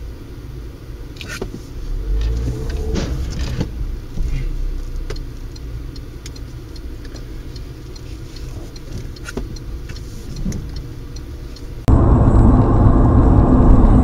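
Low rumble of a car's engine and road noise heard from inside the cabin, with a few scattered faint clicks. About twelve seconds in it cuts to a much louder, steady rumble of a car driving.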